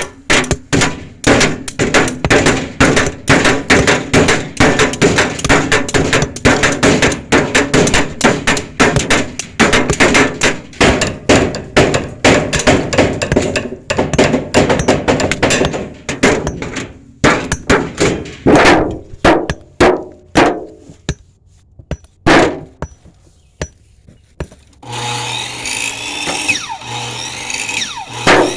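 Rapid hammering, several blows a second, that slows to separate strikes about two-thirds through and then pauses. Near the end a power drill runs in short spurts.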